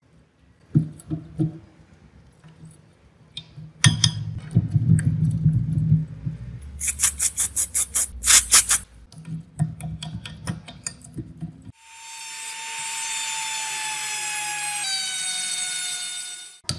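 Metal clinks and knocks from a rusty chain wrench being handled and tapped apart at its pivot bolt, with a quick run of sharp taps about halfway through. In the last few seconds a steady whirring tone takes over, slowly sinking in pitch.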